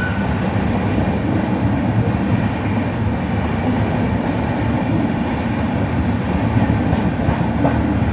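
Charlapalli Tiruchanur Express passenger train running along the track with a loud, steady rumble of its coaches, and a few faint, thin high-pitched wheel squeals.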